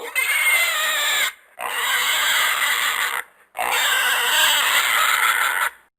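An animal squealing three times: harsh, raspy calls of one to two seconds each, with short breaks between them.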